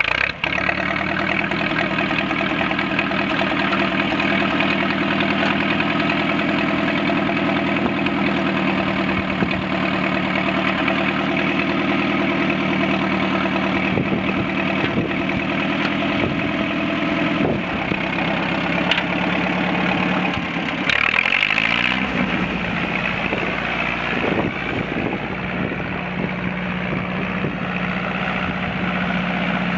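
1961 John Deere 2010 tractor's four-cylinder engine running steadily while the tractor is driven. About two-thirds of the way through, the engine note falls in pitch, then runs steadily at the lower speed.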